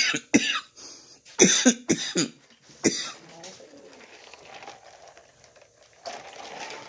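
A man coughing in short, harsh bursts, several times over the first three seconds, then a quieter breathy stretch.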